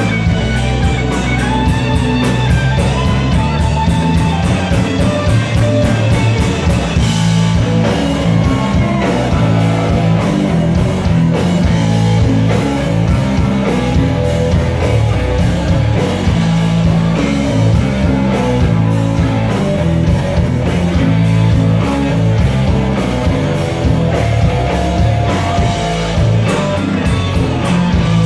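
Live rock band playing, with electric guitars, bass guitar, drums and percussion over a steady beat.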